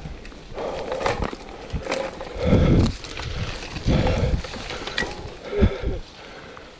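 A mountain bike ridden over a leaf-covered forest trail: the rider breathes hard in repeated puffs, over clicks and rattles from the bike and several low thumps from bumps on the trail.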